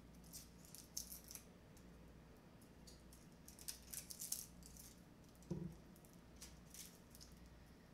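Dry, papery onion skin crackling and rustling in faint bursts as it is peeled off a small onion by hand. There is a soft knock about five and a half seconds in.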